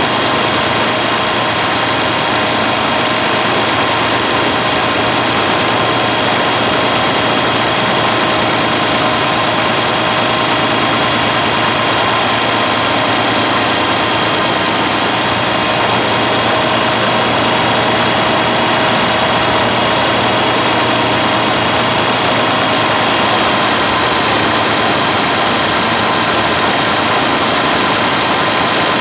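Helicopter running steadily, a continuous engine-and-rotor drone with a fixed high whine that holds the same pitch throughout.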